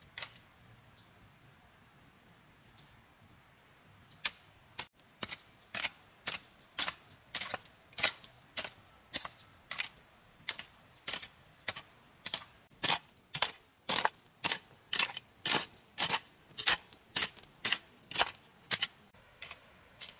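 A steady series of sharp strikes, roughly two a second, such as a hand tool hitting wood. They begin about four seconds in and grow louder, over a steady high insect buzz.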